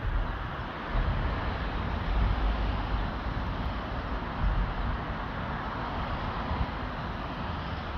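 Steady drone of road traffic crossing the concrete road bridge overhead, with wind buffeting the microphone in uneven low rumbles.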